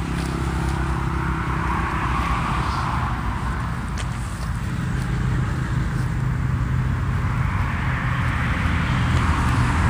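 Road traffic: vehicle engines running and passing, with a steady low hum that swells about two seconds in and again near the end. A single sharp click about four seconds in.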